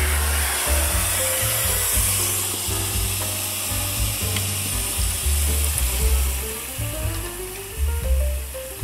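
Water from a garden-hose spray nozzle pouring into a plastic tub, a steady hiss of spray on the water's surface, easing a little near the end. Background music with a pulsing bass and a stepping melody plays over it.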